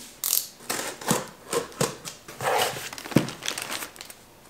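Cardboard shipping box opened by hand: flaps pulled apart and packing inside rustling, a run of short scrapes and clicks with one sharp knock about three seconds in.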